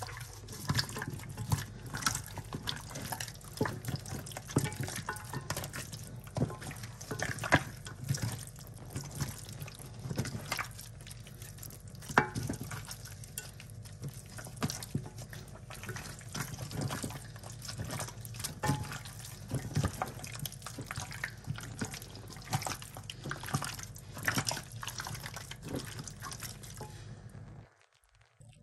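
Gloved hand kneading and squishing marinated goat meat in a glass dish: irregular wet squelches and slaps over a steady low hum, stopping abruptly near the end.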